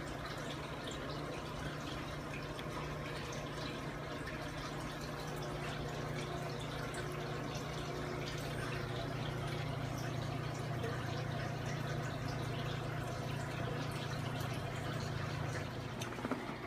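Aquarium equipment running: a steady low hum with water trickling and bubbling, scattered with small drips and pops.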